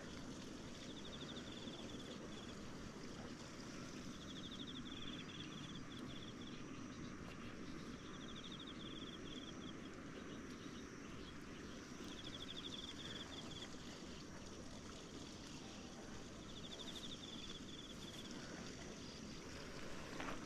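Outdoor ambience: a steady low rumble of background noise, with a high, fast-pulsing trill repeating about every four seconds.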